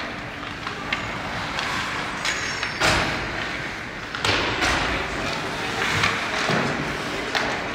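Ice hockey play: several sharp bangs against the rink boards, the loudest about three seconds in, over steady rink noise.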